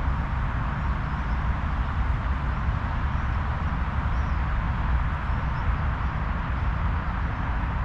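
Steady outdoor background noise: a low rumble under an even hiss, with faint high chirps every second or so.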